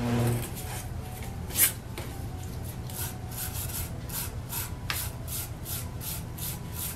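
Hand scrubbing along a steel auger bit, in repeated scraping strokes at about two to three a second, rubbing off the gray residue left by the vinegar rust removal. A single sharp knock sounds about a second and a half in.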